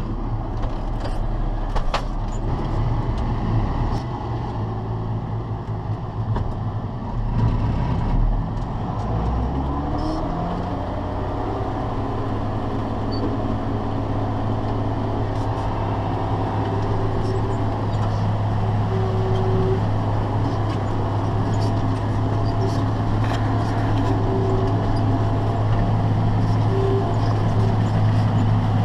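Farm tractor engine running, its pitch climbing about nine to ten seconds in and then holding steady at the higher speed.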